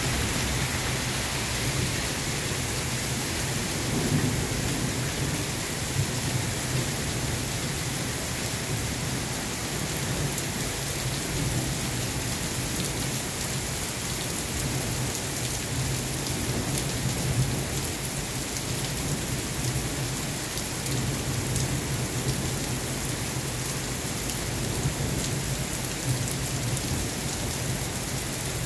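Heavy rain falling steadily on pavement and a street, with thunder rumbling low in the background, swelling and fading several times.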